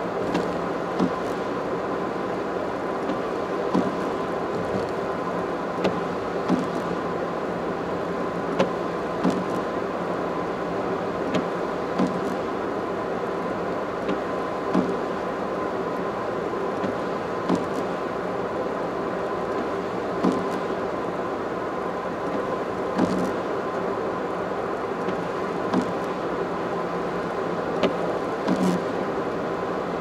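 Steady road and tyre noise of a car driving on an expressway, heard from inside the car, with short knocks every second or two.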